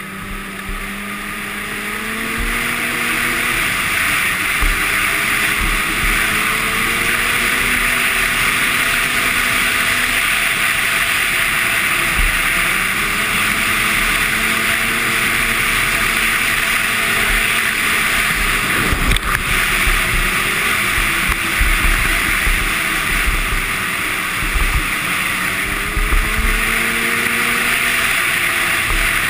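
Arctic Cat Sno Pro 500 snowmobile's two-stroke twin running at speed. Its pitch climbs over the first few seconds as it accelerates, then rises and falls with the throttle over a steady rushing noise. A single brief knock comes about two-thirds of the way through.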